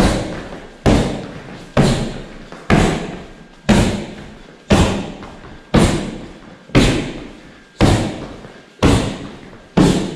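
Knee strikes landing on a hand-held strike pad, a sharp slap about once a second, each ringing out in the hall's echo.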